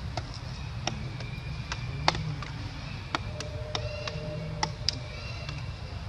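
Outdoor ambience with a steady low rumble, a scattering of sharp clicks, and brief high thin chirping tones.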